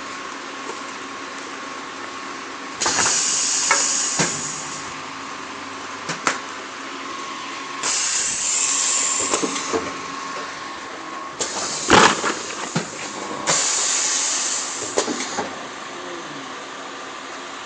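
Turntable high-frequency PVC blister welding machine cycling: four bursts of air hiss, each a second or two long with sharp clicks, about every four to five seconds, over a steady machine hum.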